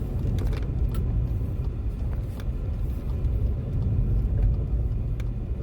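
Car driven slowly in second gear with the steering at full lock: a steady low engine and road rumble with a few faint, isolated knocks. It is a test for worn CV joints, and the slight noise is one the mechanic puts down to play in the suspension, not the CV joint.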